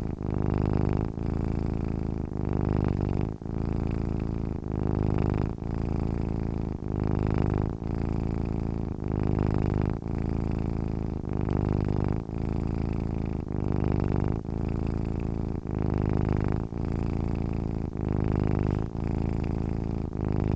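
A cat purring steadily, the purr swelling and easing with each breath about once a second.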